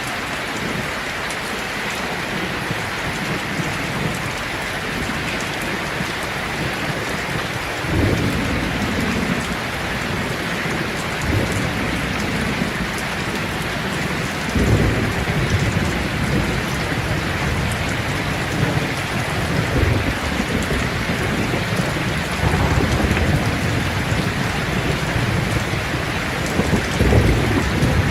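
Steady rain falling, with low rolls of thunder rumbling in about eight seconds in, again about fifteen seconds in, and near the end.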